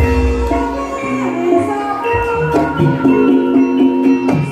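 Live Javanese gamelan ensemble playing: bronze metallophones and gong chimes ring out overlapping sustained notes. Deep low strokes come at the start and again about two seconds in.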